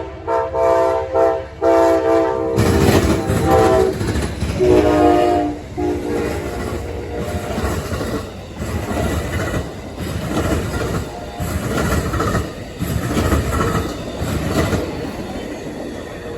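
Amtrak passenger train passing, its locomotive horn blowing a chord in several blasts that drops in pitch as it goes by, followed by the rumble and rhythmic clickety-clack of the cars rolling past.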